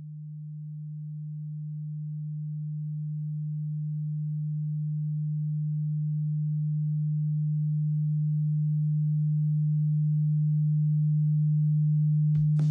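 A single steady low electronic sine tone, one unchanging pitch, slowly swelling in volume. Music with guitar comes in just at the end.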